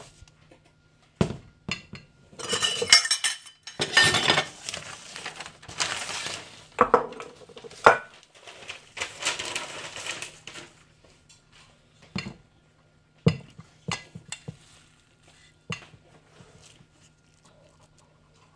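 A spoon scraping and clinking against a stainless-steel mixing bowl as a thick stuffing is stirred and scooped. The scrapes and knocks come in dense clusters through the first half, then thin out to a few separate knocks.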